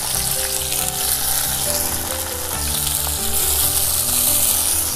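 Hot oil sizzling in a pot as crushed onion is added and starts to fry with curry leaves, a steady crackling hiss.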